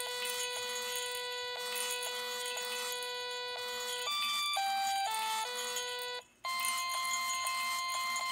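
Parallax S3 robot's speaker beeping out a simple tune in plain electronic tones, one held note after another with a short break about six seconds in. Over it, small metal jingle bells in the arms of a plush Santa riding the robot shake and jingle steadily as the arms move.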